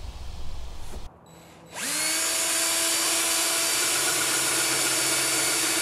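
DeWalt cordless drill spinning up about two seconds in, its whine rising quickly to a steady pitch, then running steadily as it drills into the side of a plastic barrel.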